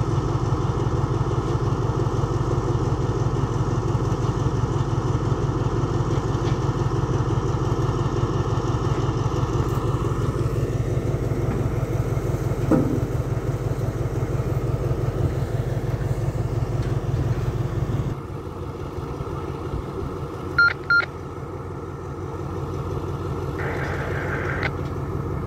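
An engine idling with a steady low pulsing drone, which drops away abruptly about 18 seconds in to a quieter background. Two short high tones sound just after 20 seconds.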